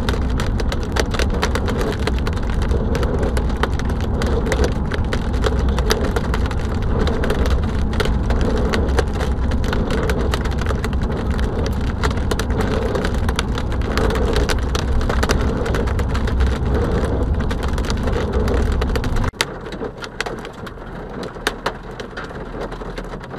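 Hail pelting a car's roof and windshield, a dense clatter of hard strikes over steady road rumble from the moving car. About nineteen seconds in the road rumble cuts out, and sparser, sharper hail strikes go on.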